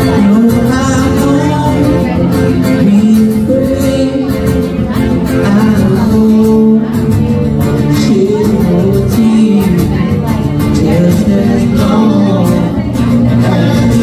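Live acoustic band: a man singing a melody over strummed acoustic guitars and a cajón.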